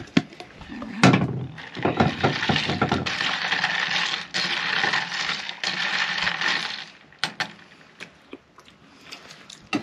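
A plastic food container knocking and clattering on a table, followed by a long spoon stirring in a tall glass jar: a loud knock about a second in, a quick run of clicks, then about four seconds of steady scraping, with a few scattered clicks near the end.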